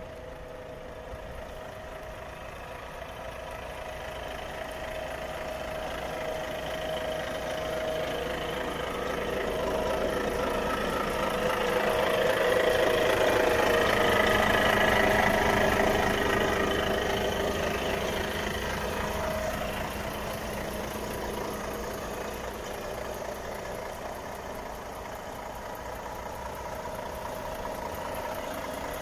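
Volvo FH 540's 13-litre six-cylinder diesel idling steadily, growing louder about halfway through and fading again.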